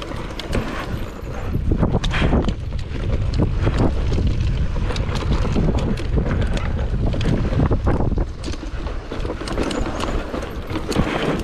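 Enduro motorcycle ridden over rough trail, heard from on board: engine and heavy wind noise on the microphone, with frequent knocks and rattles from the bumps.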